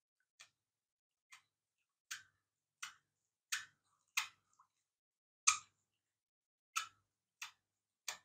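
Plastic liquid-soap dispenser pump worked by hand, squirting water into a bowl of water: about ten short, sharp clicking spurts, one every second or less.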